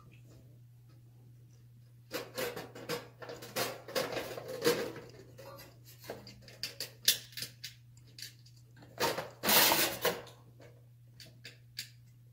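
Hands working small parts at the edge of a shower panel: a run of clicks, taps and brief scrapes, with a longer, louder scrape about nine seconds in.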